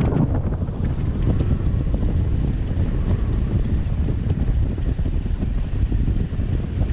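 Wind buffeting the microphone of a paraglider pilot's camera in flight: a steady, low rush of wind noise.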